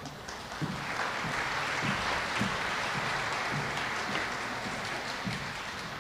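An audience applauding steadily, beginning about a second in. Soft low thumps sound underneath it about every half second.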